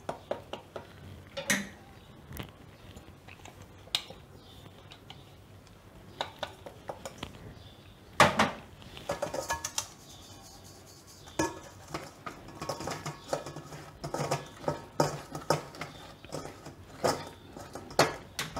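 Stainless-steel sieve shaken and tapped against a steel vessel while sifting ground cashew powder: irregular metal knocks and scraping in uneven clusters, the loudest knock about eight seconds in.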